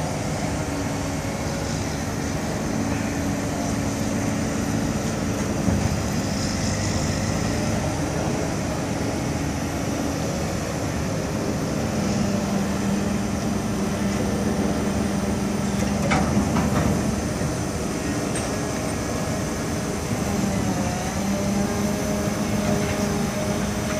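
A mobile crane's diesel engine running steadily, its pitch rising and falling as it hoists and rotates a precast concrete panel on two hook lines. A short knock comes about six seconds in and another around sixteen seconds.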